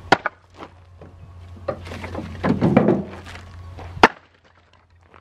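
Split firewood knocking against itself and the truck bed: two sharp knocks at the start, a longer clattering jumble near the middle, and one loud knock about four seconds in.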